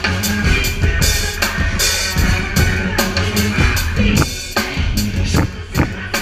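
Drum kit played live and loud, heard from right beside the kit: quick kick, snare and cymbal hits, with the rest of the band playing along underneath.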